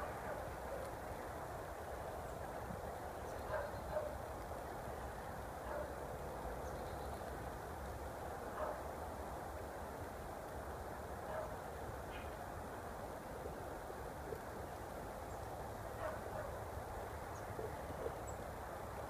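Steady outdoor background noise, with short animal calls a few seconds apart, about seven in all.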